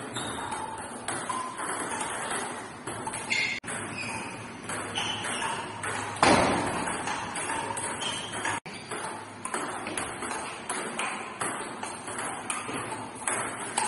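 Table tennis rallies: the ball clicking off rubber paddles and bouncing on the table in a quick run of sharp, ringing taps, with a louder burst of sound about six seconds in.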